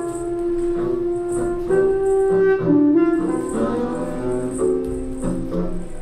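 Live improvised music led by a double bass played with a bow: long held notes, some sliding slowly in pitch.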